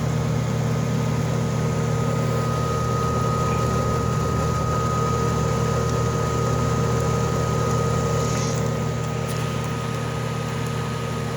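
Mitchell dehumidifier's fan motor running, a steady low hum with a thin high whine through it.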